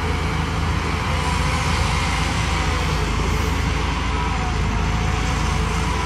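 Caterpillar 320D hydraulic excavator's diesel engine running steadily as the machine swings its boom.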